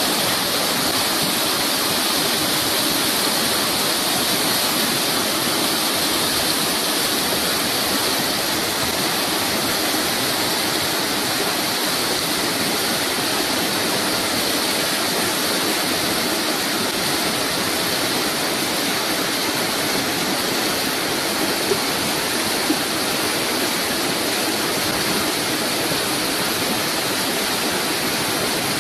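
Steady rush of river rapids, white water pouring over and around rocks.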